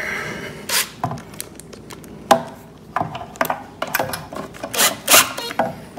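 Cordless drill-driver driving a screw into the wooden underside of a stool seat in a few short bursts, among clicks and knocks of the screw, washer and bit being handled.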